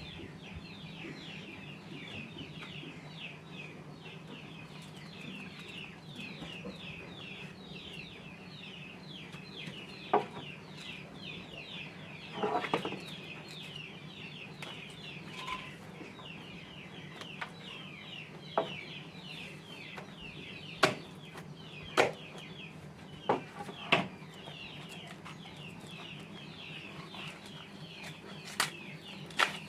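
Rapid chirping throughout, many short falling high chirps a second, over a steady low hum. Several sharp knocks and taps stand out from about a third of the way in, a few clustered near two thirds through.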